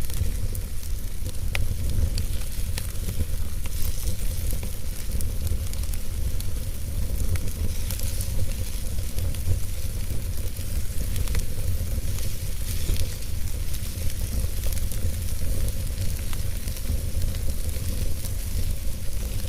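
Wood fire burning in a fireplace: a steady hiss with scattered small crackles and pops, over a low steady rumble.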